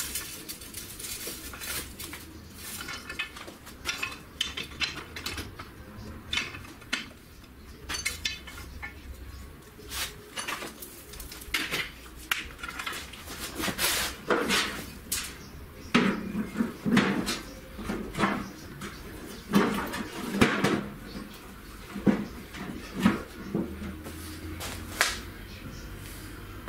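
Metal clanking and rattling: a long series of sharp knocks, thickest in a cluster a little past the middle, over a low steady hum.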